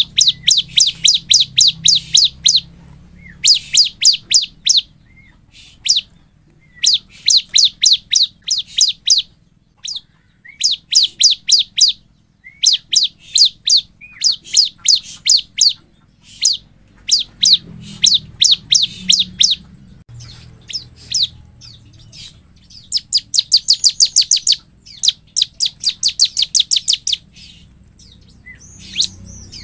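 Bar-winged prinia (ciblek) in full song: rapid trills of sharp, high notes in bursts of about a second, repeated again and again with short gaps between.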